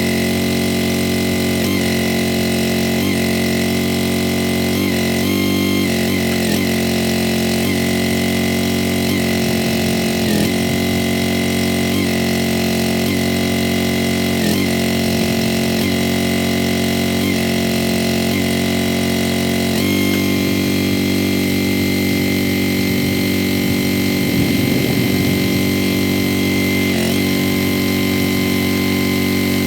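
Engine of a Wolfe Ridge firewood splitter running steadily while it warms up in the cold. Its tone shifts slightly about once a second until roughly two-thirds of the way in, then holds steadier.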